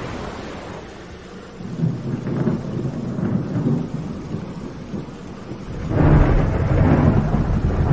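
Thunder rumbling in a storm: a low rumble builds about two seconds in, and a louder, longer peal comes about six seconds in.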